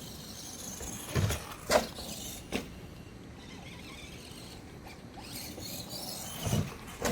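Electric drive motor and gearing of a 1/10-scale FMS Ford F100 High Roller RC monster truck whining in about five short bursts as the throttle is blipped, the pitch sweeping up and down with each burst.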